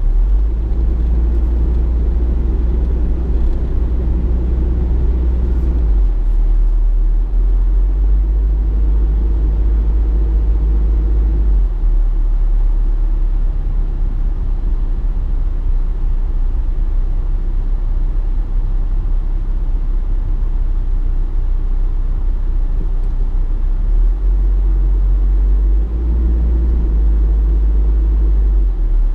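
Engine and road noise of a car on the move: a steady low rumble that drops in pitch about six seconds in and again near twelve seconds, then rises again a few seconds before the end, as the engine speed changes.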